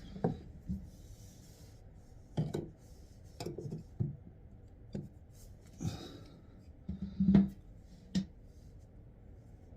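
Hands working at a toilet cistern's water supply hose connection: a scatter of light knocks, clicks and rubbing as the hand-tight hose nut is loosened and handled.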